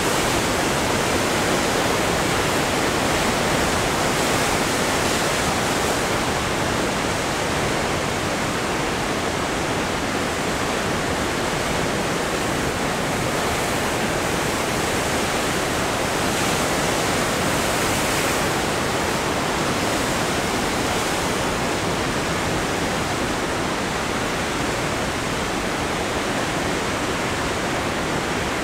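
Powerful ocean surf breaking over rocks, a steady wash of churning white water with no single crash standing out.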